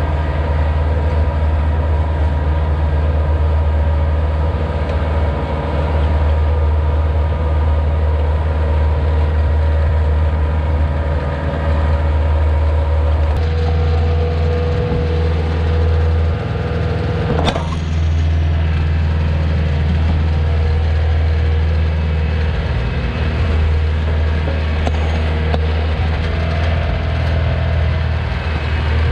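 Kioti 35 hp compact tractor's diesel engine running steadily under load as it drags a landscape rake through wood shavings. One sharp knock sounds a little past halfway.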